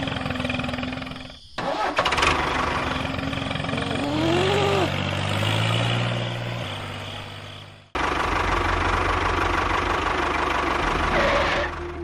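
Vehicle engine running, in stretches that break off abruptly about one and a half seconds in and again about eight seconds in.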